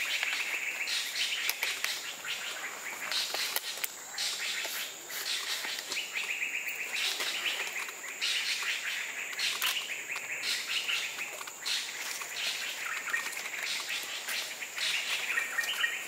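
Drongos calling in repeated bursts of rapid, scratchy chirps every few seconds, mobbing calls aimed at a perched barred eagle owl. Under them runs a steady high-pitched insect drone.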